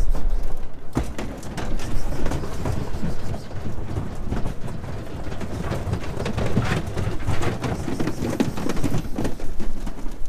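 Many sheep hooves clattering and scrabbling on a livestock trailer's metal floor and ramp as the flock hurries out, a dense, irregular patter of small knocks.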